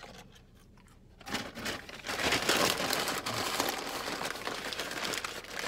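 Paper fast-food packaging crumpling and crinkling. It starts about a second in and goes on as a dense, irregular crackle.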